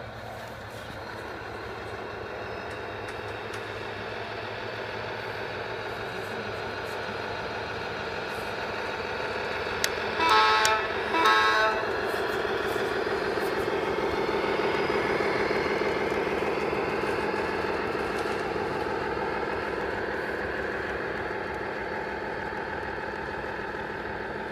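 Radio-controlled model truck running: a steady, engine-like hum with many overtones that grows louder toward the middle and fades again, with two short horn toots about ten seconds in.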